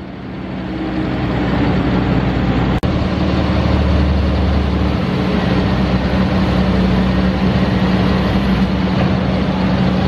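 Tractor-mounted, snowblower-style sugar blower running steadily, its engine and blower making a loud, continuous drone with a strong low hum, growing louder over the first two seconds.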